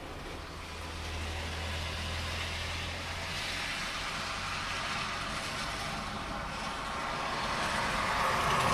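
Heavy rain with a car approaching on the wet road, its tyre hiss growing louder and loudest near the end.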